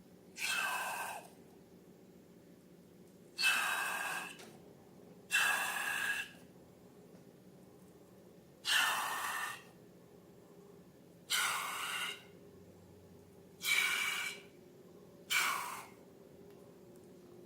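Seven short, breathy bursts of rushing air, each lasting about a second and irregularly spaced, over a faint low hum.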